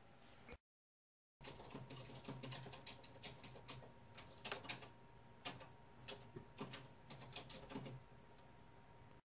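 Faint, irregular clicks and taps, several a second and uneven in strength, over a low hiss. The audio drops out to silence for under a second near the start.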